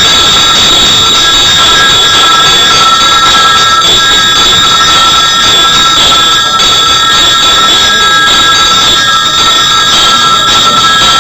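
Temple bells ringing loudly and without a break, several steady metallic tones sounding together over a dense clatter.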